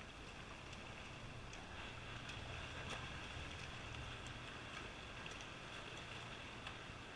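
Faint, steady noise with light scattered splashing from swimmers swimming butterfly away down the pool.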